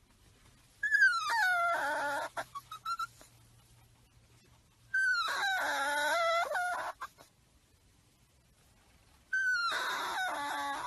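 A puppy giving three drawn-out pitched calls, a few seconds apart. Each one starts high and slides down in pitch.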